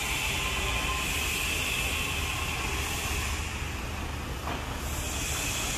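Steady running noise of a moving vehicle: low engine and road rumble with a hiss over it.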